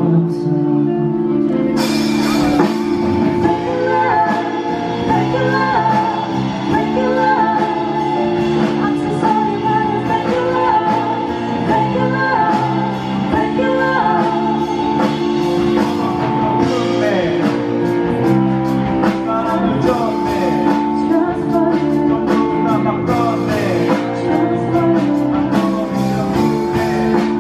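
A singer performing a song live over amplified instrumental accompaniment, in a large room.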